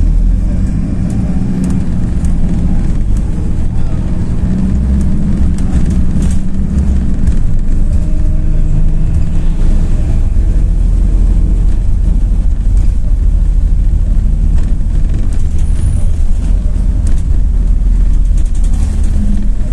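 Cabin sound of a MAZ-206 city bus under way: steady engine and road rumble with a few short rattles, the low rumble growing heavier about halfway through.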